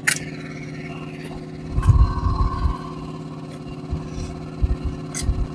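A small engine running with a steady, even hum, with a few low thumps about two seconds in and again near the end.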